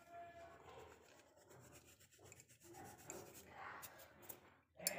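Faint rubbing and light scratching of fingers crumbling black salt over a plate of cut sweet potato, with a few soft clicks near the end.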